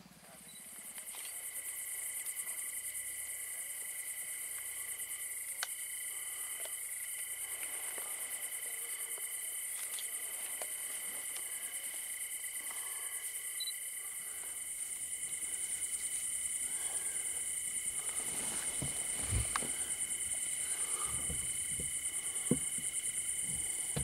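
Crickets and other night insects chirring in a steady high-pitched drone, with a couple of fainter steady high tones beneath it. A few sharp clicks and some low knocks and thuds come in the second half.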